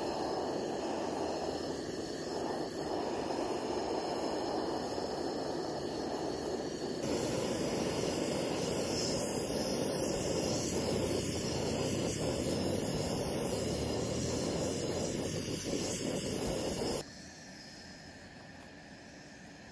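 Gas camping stove burning under a kettle, fed by a hose from a butane canister, with a steady rushing hiss from the burner flame. The hiss grows louder and brighter about a third of the way in, then drops to a faint hiss a few seconds before the end.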